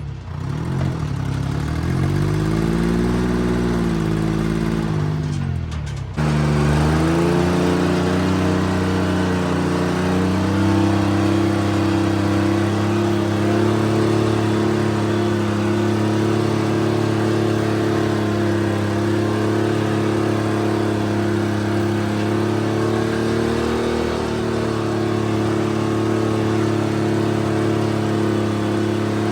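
Timberjack 225D skidder's diesel engine, its revs rising and falling for the first few seconds. After an abrupt change about six seconds in, it runs steadily.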